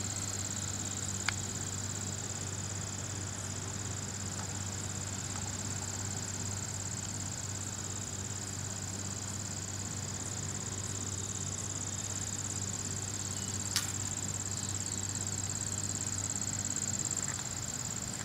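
Steady high-pitched chirring of insects over a low steady hum, broken by two short sharp clicks, one about a second in and one near fourteen seconds.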